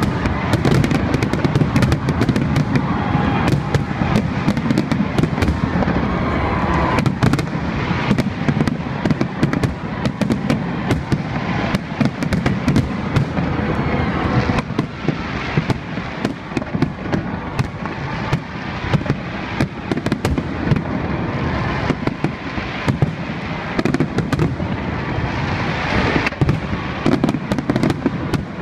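Fireworks display: aerial shells bursting in quick succession, many sharp bangs overlapping on a continuous low rumble.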